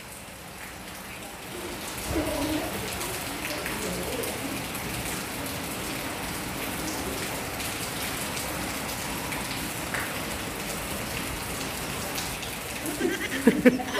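Steady rain falling on a wet concrete rooftop, with faint voices murmuring about two seconds in.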